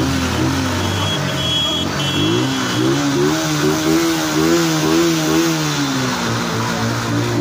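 Motorcycle and tractor engines running in a slow-moving convoy. One engine's pitch rises and falls repeatedly over the middle few seconds, as if the throttle is being blipped, over a steady lower engine note.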